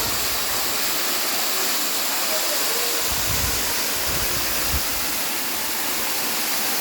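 Waterfall, a steady dense rush of falling water, with a few faint low bumps about three to five seconds in.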